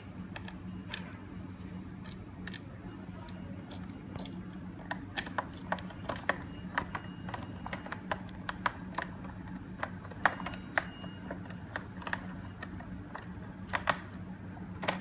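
Screwdriver driving a screw into a door lock's back panel: small, sharp, irregular clicks, sparse at first and then several a second from about five seconds in, over a steady low hum.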